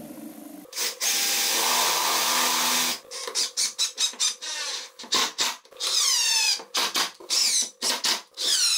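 Cordless DeWalt power driver driving screws: one continuous run of about two seconds, then a quick series of short trigger bursts, each whine falling in pitch as the motor spins down.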